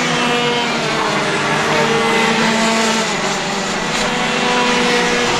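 Several racing kart engines running at once on track, their overlapping notes holding steady or shifting slightly in pitch as the karts go past.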